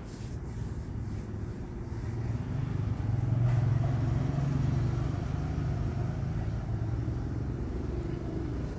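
Low engine rumble of a passing motor vehicle, building from about two seconds in, loudest around the middle, then easing off.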